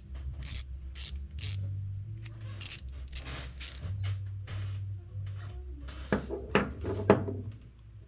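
Blackhawk thin-profile 72-tooth ratchet, 1/4-inch drive, worked back and forth: repeated short bursts of fine pawl clicking, about two a second.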